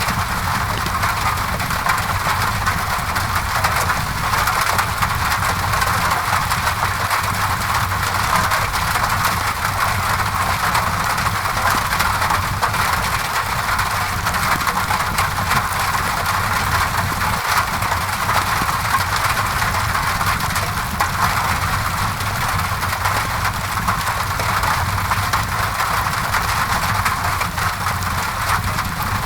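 Steady rain on a window mixed with a crackling wood fire, over an even low rumble; the sound holds constant throughout.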